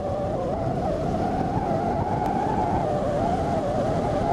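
A car driving along a road, heard from inside: a steady rush of road and wind noise, with a wavering whistle-like tone riding over it.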